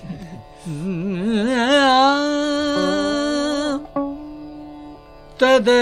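Carnatic music with veena. Slow phrases bent by wide, wavering gamaka ornaments lead into a long held note. About four seconds in, a single plucked note rings and fades, and a new phrase starts sharply near the end.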